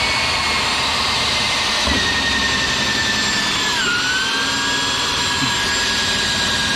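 Handheld Dyson vacuum running with its nozzle held at an electric drill's step bit as it cuts through fiberglass. A steady rushing noise with a high whine that dips in pitch about four seconds in.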